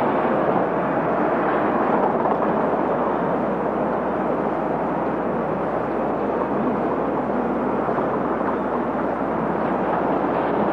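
Steady street traffic noise: city buses and cars running along a road, a continuous even rumble and hiss with no distinct events.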